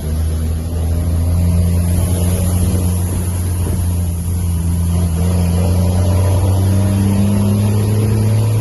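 Mercedes-Benz Atego 2425 truck's diesel engine running loud under way, its note rising slowly as it gains revs.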